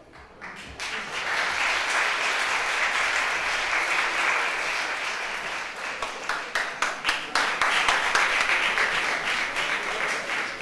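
Theatre audience applauding, the clapping swelling up about half a second in and holding steady; individual claps stand out more in the second half.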